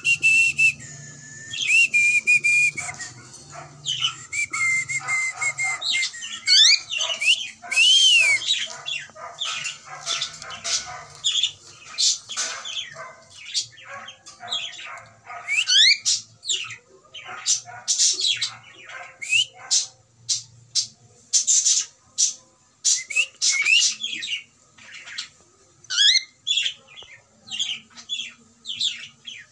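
Pet cockatiel whistling, with long held notes over the first few seconds, then a run of short rising chirps and squawks.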